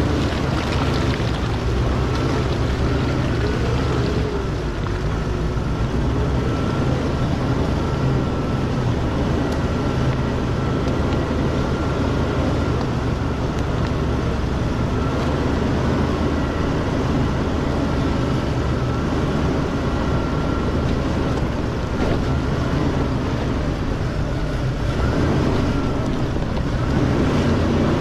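Jeep engine running at low speed as it crawls over a dirt and rock trail, a steady low drone with a faint high whine over it.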